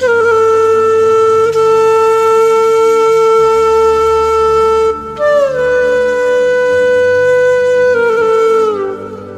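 Background music: a flute playing two long held notes, each bending downward at its end, over a soft low drone.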